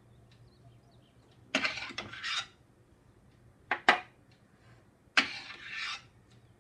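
Brief scrapes against a stainless steel plate as soft rice-flour dough pieces are pressed and shaped on it, three times, with two sharp metallic clinks close together a little past the middle.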